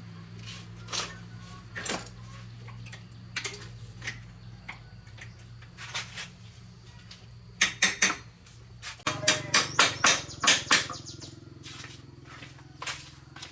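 Metal parts and hand tools clinking and clicking during hand work, with a quick cluster of sharp clicks nearly eight seconds in and a longer run of clinks from about nine to eleven seconds, over a faint steady low hum.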